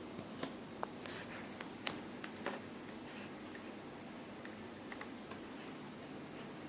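Irregular keystroke clicks of typing on a computer keyboard, bunched in the first two and a half seconds with a few more about five seconds in, over a steady background hiss.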